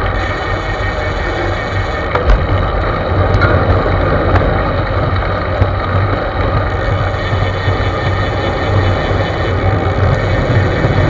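Wind rushing and buffeting over the microphone of a camera mounted on a moving road bicycle, with road rumble underneath. A couple of sharp clicks stand out, one about two seconds in and another about four seconds in.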